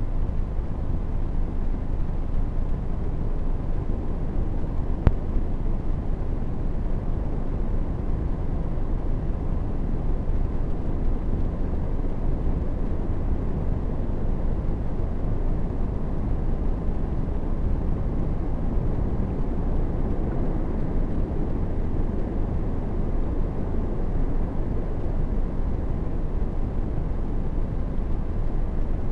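Steady low rumbling wind noise on the microphone of a camera lying in grass, with one sharp click about five seconds in.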